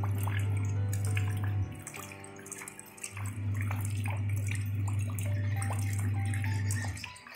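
Raindrops pattering and splashing onto shallow water over pebbles, with many small separate drip splashes. Under it runs soft background music with a deep, steady low drone and held notes; the drone drops out for about a second and a half early on and again near the end.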